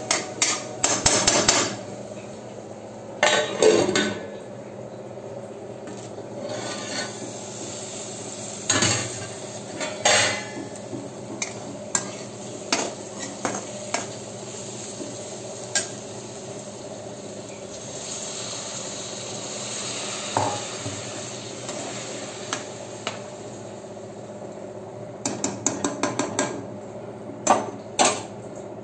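A spatula stirring food in an aluminium kadai, scraping against the pan and knocking on its rim in clusters of sharp clinks, over a steady low hiss.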